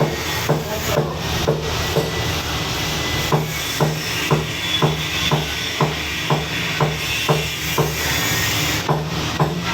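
Background pop music with a steady beat of about two strokes a second.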